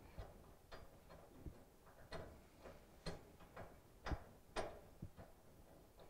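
Faint, irregular clicks and ticks of a screwdriver turning the screws that hold the coil bracket on a gas dryer's gas valve, the loudest pair about four seconds in.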